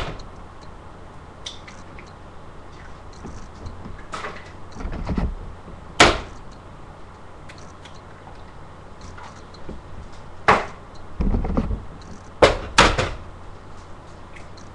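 Eggs being cracked by tapping them against the rim of a bowl: a few sharp knocks several seconds apart, two close together near the end, with duller thumps between.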